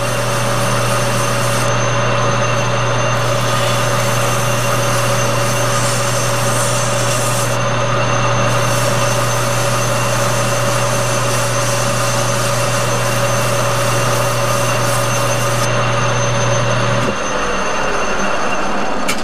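Metal lathe running steadily, motor hum and spindle noise, while a workpiece is hand-polished on it. About seventeen seconds in the motor is switched off and the spindle coasts down, its pitch falling.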